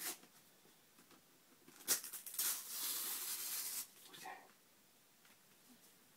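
Christmas wrapping paper being torn and rustled as a present is unwrapped: a sharp crackle about two seconds in, then about a second and a half of rustling.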